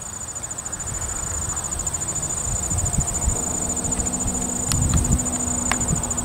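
A high, steady insect trill, rapidly pulsing, over a low rumble that swells about five seconds in.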